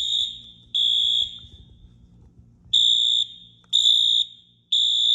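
EST Genesis fire alarm speaker strobes sounding a high-pitched electronic beep in the temporal-three evacuation pattern. Half-second beeps come in groups of three, with a pause of about a second and a half between groups.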